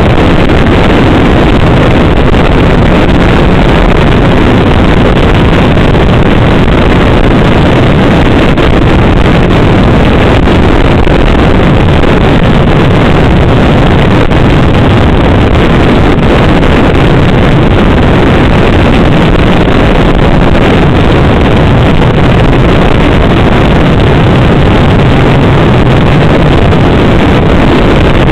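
Snowmobile engine running steadily while cruising along a trail, mixed with wind buffeting the microphone; loud and constant throughout, with no change in speed.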